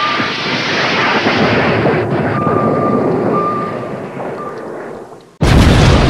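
Explosion sound effects: a loud rushing rumble that fades over about five seconds, then a sudden, louder blast about five and a half seconds in.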